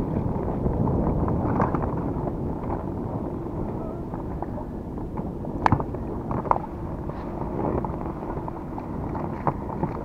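Strong wind buffeting the microphone over choppy water around an inflatable boat, a steady rushing noise, with a few sharp knocks a little past halfway and near the end.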